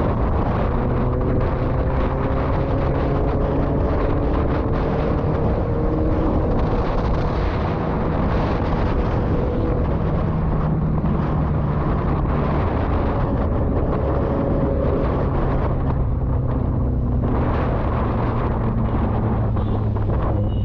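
Motorcycle engine running under way, its pitch rising gradually as it pulls through the gears, under a steady rush of wind and road noise on the helmet-mounted camera's microphone.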